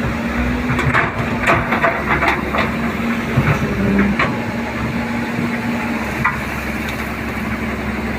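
JCB 205 excavator's diesel engine running steadily, with a run of sharp knocks and crunching, like rock or coal being scraped and broken by the bucket, from about a second in until about four seconds in, and one more knock a little after six seconds.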